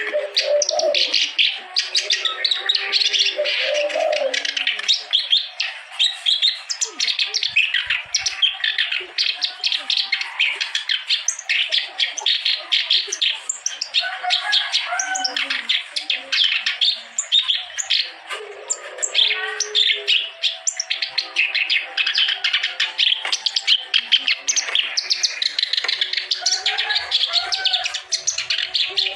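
Kerak basi (reed warbler) singing a continuous, fast, chattering song of harsh chirps and warbles, with lower warbled notes mixed in.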